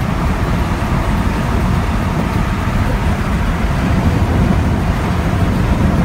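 Steady road noise inside the cab of a Ford Ranger pickup cruising at highway speed, about 60 mph: the hum of its new Goodyear tires on the pavement blended with wind and engine into a dense low rumble.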